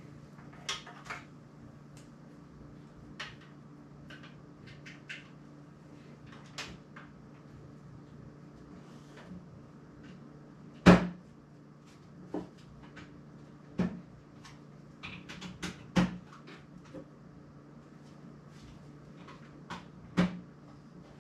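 Scattered short knocks and clicks at uneven intervals, the loudest about eleven seconds in, over a faint steady low hum.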